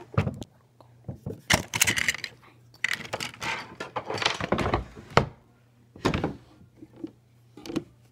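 Objects being handled: irregular rattling and clattering with sharp clicks and knocks, densest for the first few seconds, then a couple of separate knocks near the end.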